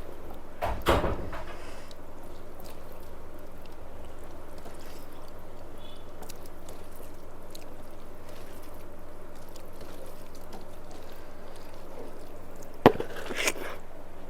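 Eating sounds: rice and fish curry being mixed by hand and eaten from a plate, over a steady low hum, with a short knock about a second in and a sharp click near the end.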